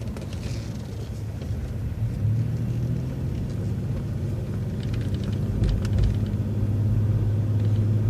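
City bus engine running with a steady low hum that grows stronger about two seconds in and keeps getting louder as the bus pulls out of a right turn and picks up speed.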